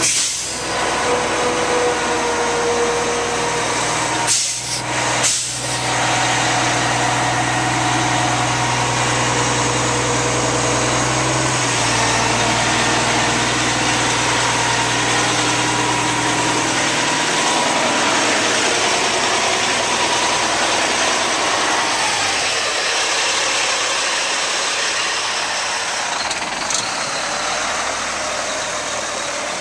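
The Cat C-10 diesel engine of a Kenworth T800 concrete mixer truck idling steadily, its low note stepping down around the middle.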